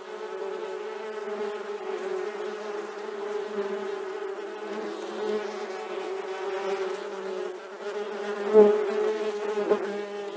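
A steady buzzing hum, a low drone with a stack of overtones that wavers slightly. A louder bump comes about eight and a half seconds in, and a smaller one a second later.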